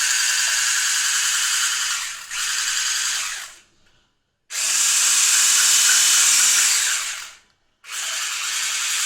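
Electric hand mixer running steadily as it whisks eggs and milk in a glass to a froth. It cuts out twice, about four and about seven and a half seconds in, each time starting again a moment later.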